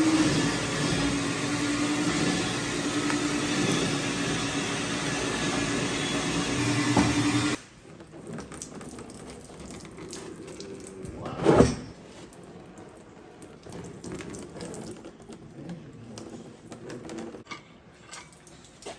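A steady machine hum with hiss, ending abruptly about seven seconds in. Then light clicks and clinks of metal engine parts being handled, with one brief louder scrape or clunk about eleven seconds in.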